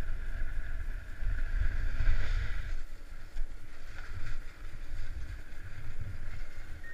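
Wind buffeting the camera's microphone and the hiss of sliding over groomed snow, loudest for the first three seconds, then dying down as the rider slows at the chairlift gates, with a few light knocks near the end.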